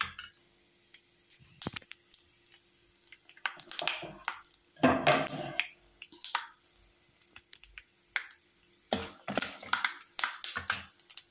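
Peanuts, cumin seeds and curry leaves crackling in hot oil in an aluminium pan: scattered sharp pops, denser near the end, with a longer rustling burst about five seconds in.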